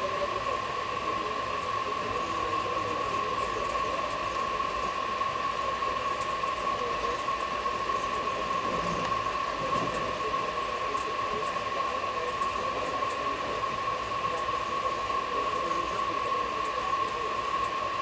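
Steady running noise inside an air-conditioned railway coach on the move, with a constant steady whine throughout and faint voices in the background.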